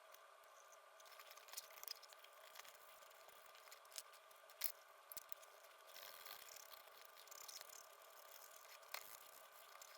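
Near silence: a faint steady hum with scattered small clicks and taps, the loudest a little past four and a half seconds in.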